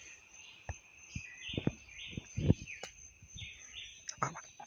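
Birds chirping in a quick repeated pattern over a steady high-pitched insect trill, with several dull knocks and thumps scattered through, the loudest about two and a half seconds in.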